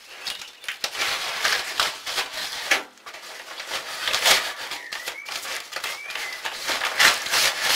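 Padded mailing envelope being handled and slit open with a knife: repeated crinkling and rustling of paper, with short tearing sounds.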